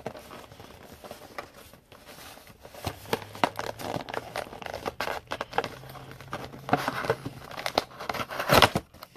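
Plastic wrapping crinkling and tearing in irregular crackles as a sealed box of trading cards is unwrapped, with a sharper rip about eight and a half seconds in.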